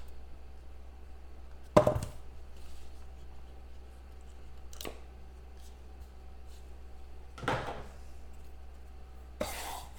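Trading cards and their box being handled on a table: a sharp knock about two seconds in, a fainter click in the middle and brief rustles near the end, over a steady low hum.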